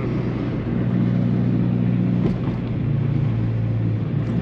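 Subaru BRZ's flat-four engine through an Invidia N1 exhaust, droning steadily while cruising, heard from inside the cabin. Its note shifts in pitch about a second in and again near three seconds.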